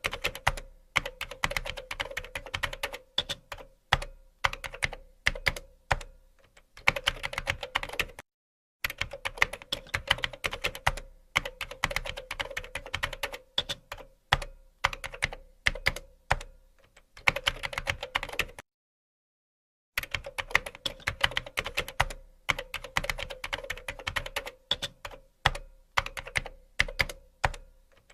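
Typing on a computer keyboard: fast runs of keystrokes broken by short pauses, with a few heavier single key strikes, over a faint steady hum. The sound cuts out completely twice, briefly about eight seconds in and for over a second a little past halfway.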